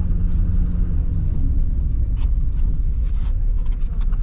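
Engine of a farm vehicle running steadily, with a loud low rumble and a few light clicks.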